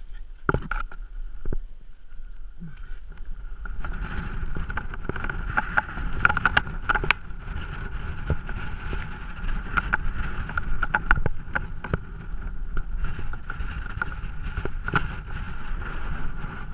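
Wind rumbling on a body-worn camera's microphone, with scattered sharp clicks and scrapes of a rock climber's hands, shoes and gear against the rock. The clicks come sparsely at first and grow frequent from about four seconds in.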